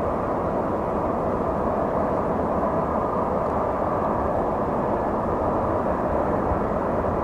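Steady rumble of a vehicle being driven, engine and road noise holding at an even level.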